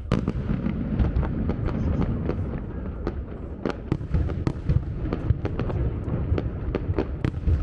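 Aerial fireworks going off: a dense run of bangs and sharp cracks over a continuous low rumble, starting suddenly.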